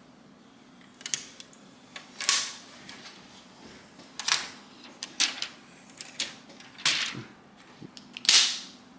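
Irregular sharp clicks and short rustles, a dozen or so, the loudest about every two seconds, from the Gigabyte Aero RTX 4070 Ti graphics card and its packaging being handled.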